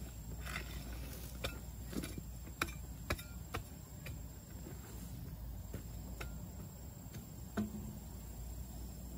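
A hoe chopping into loose soil, several knocks in the first three and a half seconds, then a few quieter footfalls of rubber boots over the tilled earth. A steady high insect trill runs underneath.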